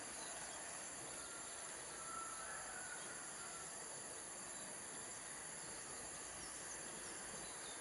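Faint, steady outdoor ambience: a hiss with insects trilling high, and a few faint chirps between one and three seconds in.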